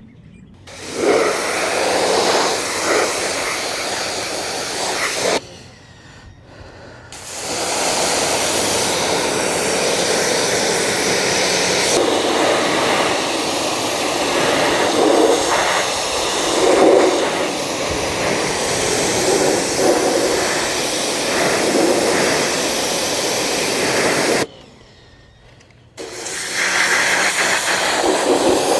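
Pressure washer jetting water onto a car's soaped door and windows: a loud, steady hiss of spray that stops twice for a second or two as the trigger is let go, then starts again.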